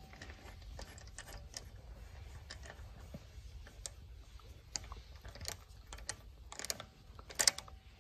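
Light metallic clicks and ticks of a locking wheel bolt and its key socket being turned by hand into an alloy wheel, irregular, with a louder clink near the end.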